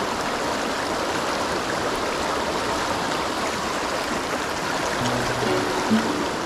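Shallow, fast-flowing stream rushing over rocks: a steady, even wash of water noise. Background music notes come in about five seconds in.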